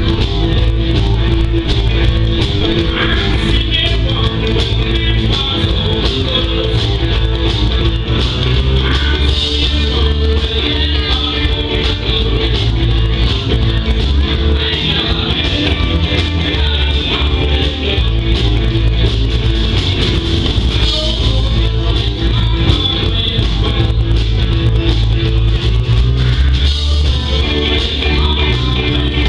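Live rock band playing through a stage PA, with electric guitar over bass and drums in a steady beat.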